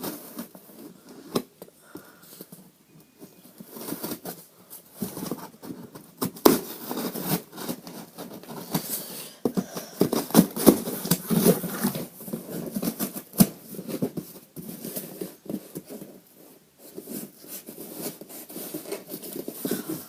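Handling noise of a shipping package being opened by hand: irregular rustling, crinkling, scraping and light taps, busiest in the middle.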